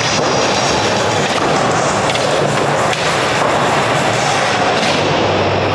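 Skateboard wheels rolling over wooden ramps, a steady loud rumble.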